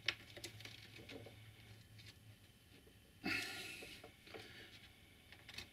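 Faint clicks and taps of fingers handling a thin wire dropper against copper tape beside model railway track, with a sharp click at the start and a short breathy rush about three seconds in.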